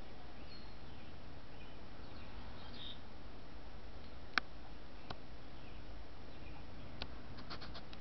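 Steady background noise with a few faint high bird chirps early on, then several sharp clicks: one loud click about halfway, two lighter ones, and a quick run of clicks near the end.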